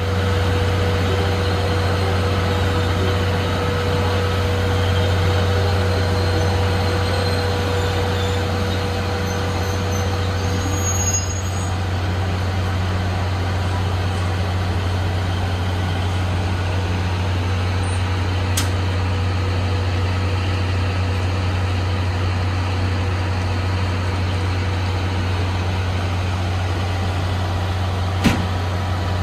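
Steady low hum of a Tobu 500 series Revaty electric train standing at the platform, its onboard equipment running, with a faint higher steady tone that fades out about a third of the way in. Two short sharp clicks, one about two-thirds through and one near the end.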